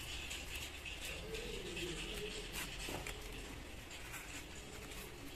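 Faint handling noise of small polystyrene squares being slid onto a wooden stick, with a couple of soft clicks.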